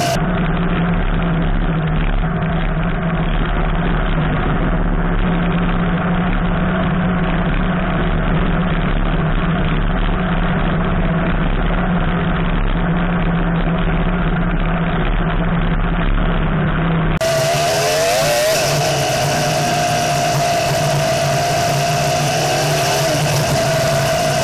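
Homebuilt off-road buggy's engine running while driving on a dirt road. About two-thirds of the way through, the sound turns abruptly brighter, and the engine note then rises and falls with the throttle.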